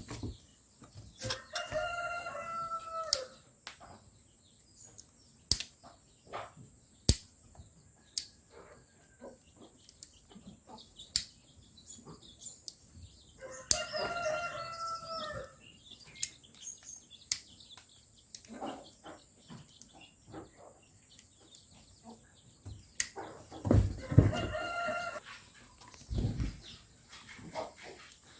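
A rooster crowing three times, about ten seconds apart. Scattered sharp clicks and knocks run between the crows.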